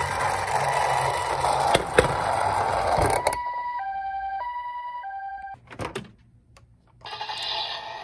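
Toy ambulance's battery-powered siren sounding from its small speaker while the plastic minicar rolls down a wooden slope with a rattle, a few sharp knocks by about three seconds in. The siren then plays clearly as a two-note high-low pii-poo alternating a little over once a second, cuts off about five and a half seconds in, and after a short quiet a rustling noise starts near the end.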